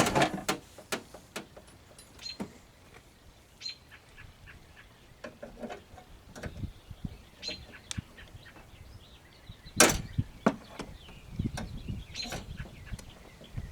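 Scattered clicks, taps and knocks of hand work on a car door's panel and window-regulator parts, with a sharper knock about ten seconds in.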